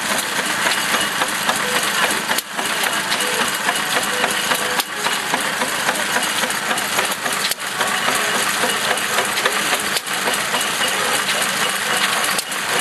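6 hp McDonald Super Diesel Type F stationary engine running with a steady, dense metallic clatter, broken by a brief dip in sound about every two and a half seconds.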